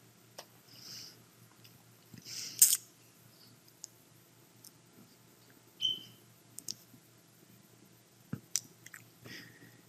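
Quiet, scattered computer mouse clicks and a few short soft hissing noises, the loudest about two and a half seconds in, over a faint steady low hum.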